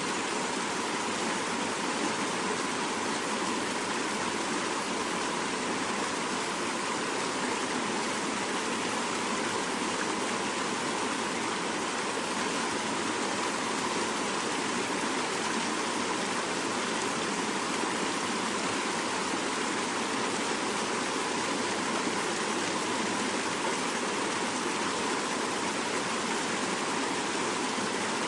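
Fast-flowing mountain river rushing steadily over rocks.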